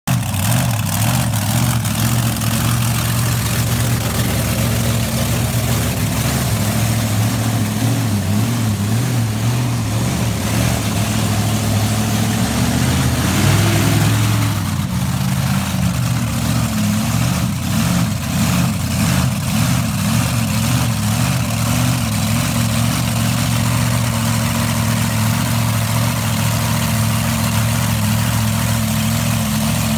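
Monster truck engine idling with a steady low note, rising briefly about halfway through as the truck drives a short way, then settling back to a steady idle.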